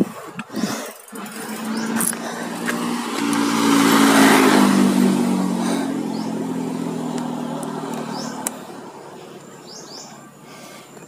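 A motor vehicle passing by. Its engine note swells to a peak about four seconds in, drops slightly in pitch as it goes past, and fades away by about eight seconds.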